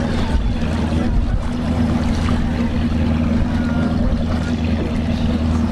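A boat's inboard engine running at a steady speed, heard from aboard as a constant low hum under a rushing noise.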